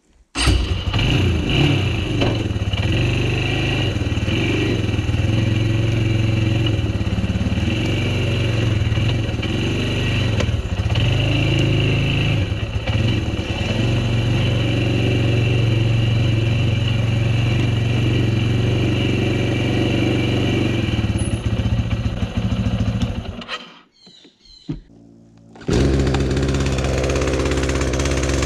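ATV engine running as it is ridden over the forest floor, its pitch wavering with the throttle; it stops suddenly about 23 seconds in. After a short pause, another steady engine sound starts near the end.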